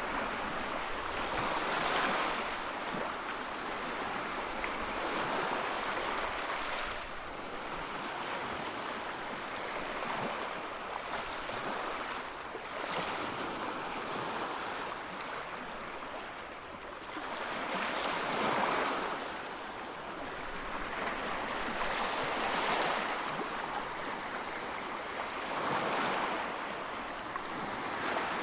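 Ocean surf washing onto a beach, the wash swelling and falling back every few seconds.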